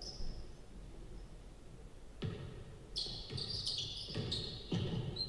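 Basketball bouncing a few times on a hardwood gym court, with high sneaker squeaks in the second half as the players move.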